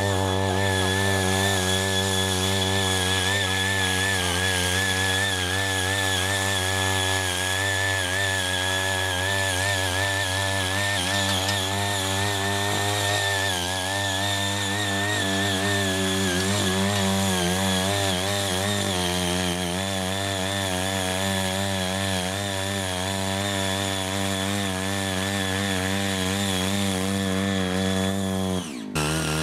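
Small engine of a CHING YEE CY80 mini walk-behind cultivator running steadily as its rotary tines till and weed the soil, its pitch wavering slightly. The sound drops out for an instant near the end.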